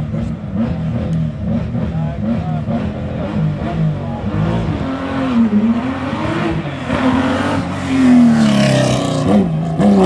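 Rally car engine at a stage start, revved in quick repeated blips about three times a second, then run up higher with long rising and falling revs and a sharp drop near the end as the car pulls away.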